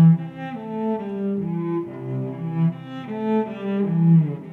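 Music: low, sustained instrumental notes in a melody that moves to a new note about every half second.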